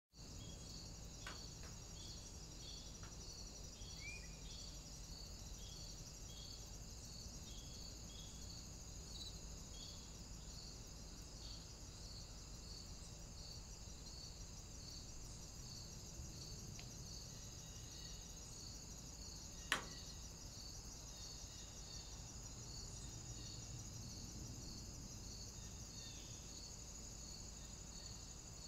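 Crickets and other insects chirping in a field: a steady high drone with a regular chirp repeating more than once a second, under a faint low hum. One sharp click just before the 20-second mark is the loudest sound.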